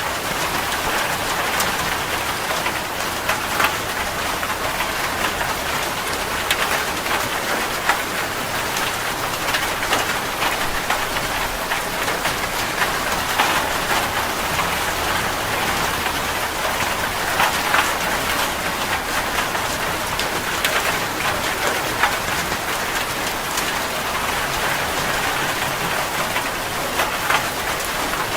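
Heavy rain falling steadily on a metal roof: a constant hiss with many sharp taps from individual drops.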